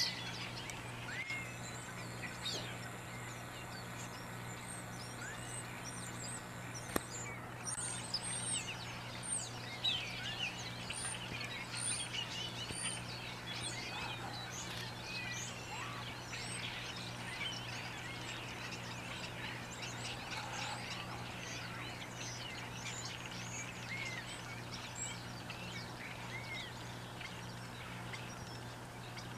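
A flock of songbirds perched in bare trees, many calling at once: a dense chatter of short high whistles and chirps that thickens after the first several seconds, over a steady low hum.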